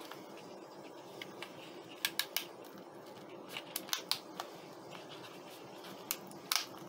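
Latex rubber mould being peeled by hand off a plastic sheet: scattered sharp ticks and crackles as the rubber pulls free, in two bunches, over the steady hum of an air conditioner.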